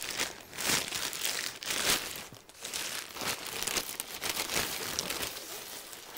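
Clear plastic bag crinkling and rustling in uneven swells as a lever-action rifle is pulled out of it.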